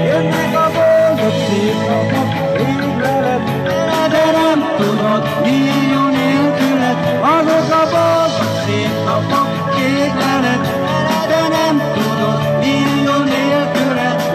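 A live band playing an amplified pop song: a drum kit keeps a steady beat under bass notes and a lead melody line.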